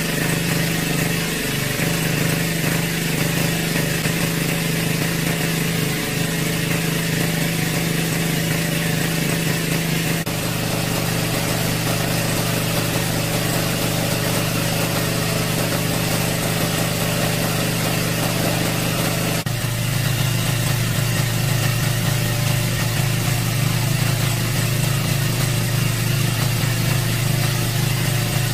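Small engine-driven water pump running steadily with a constant low hum, which jumps slightly in tone twice.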